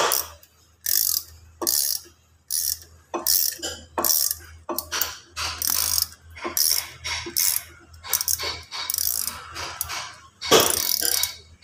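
Brake caliper piston compressor being wound in by hand in short twists, a brief metallic grating click-run with each twist, about one and a half a second, as the caliper piston is pressed back slowly to make room for new brake pads.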